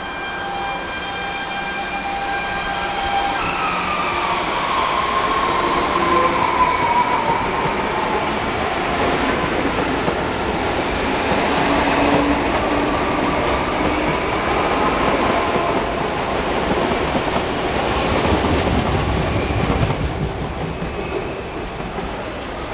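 CPTM Série 2000 electric multiple-unit train running past on the rails: a continuous rumble of wheels on track, with a whine that falls in pitch a few seconds in. It grows louder through the middle and eases off near the end as the train draws away.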